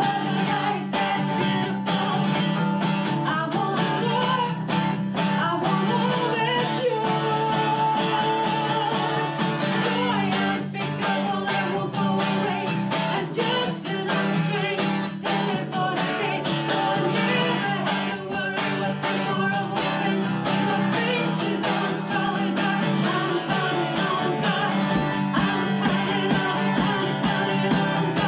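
A woman sings a worship song to a strummed acoustic guitar, with no break.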